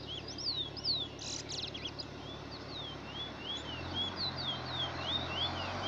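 Trinidad bullfinch (chestnut-bellied seed finch) singing a quick run of clear whistled notes, most sliding downward, with a brief buzzy rattle about a second and a half in.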